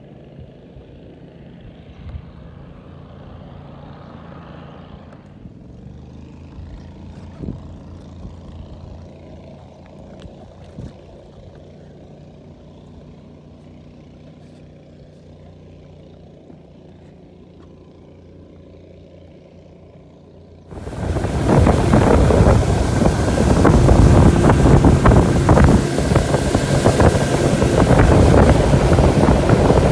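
A boat motor running at a low, steady idle, then, after an abrupt change about two-thirds of the way in, the boat running loud underway with wind buffeting the microphone.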